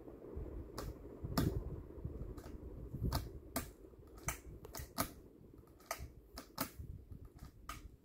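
A ceiling fan's metal ball pull chains clicking against each other and the fixture as they swing, about fifteen sharp, irregular clicks, over a low rumble.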